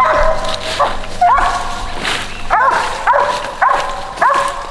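Coonhound barking repeatedly on the hunt, short loud chop barks about every half second to a second.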